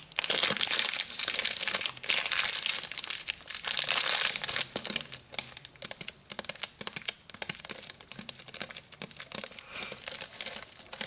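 Fingers crinkling and scratching the clear plastic wrapper of a bar of laundry soap close to the microphone. It is dense at first, with heavy bursts in the first few seconds, then turns to lighter, scattered crackling.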